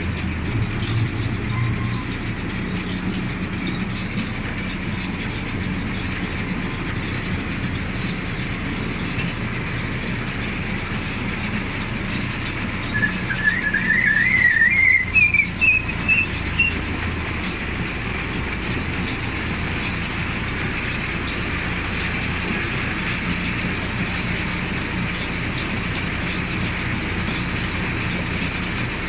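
John Deere 582 Premium round baler running on a tractor's drive, a steady mechanical run with regular light clicks. About halfway through, a brief warbling squeal rises in pitch.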